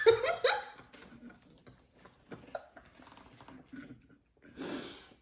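A short high-pitched vocal sound, like a squeal or laugh, at the start, then faint clicks, smacks and rustles of eating, and a breathy puff near the end.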